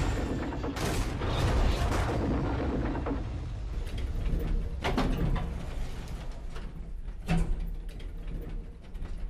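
Rumbling, mechanical sound effects of a cartoon elevator arriving and its doors sliding, the deep rumble fading over the first three seconds; after that come a few scattered soft knocks and clicks.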